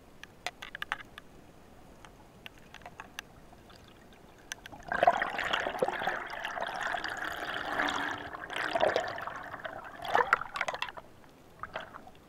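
Underwater bubbling: after a few faint clicks, a dense stream of air bubbles rushes and gurgles past the microphone for about six seconds, starting about five seconds in and stopping about eleven seconds in.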